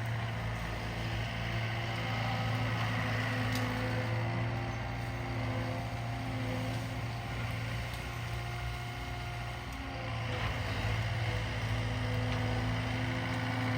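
Cat 299D2 compact track loader (skid steer) running steadily, its diesel engine giving a constant low hum with a slight dip in level about two-thirds of the way through.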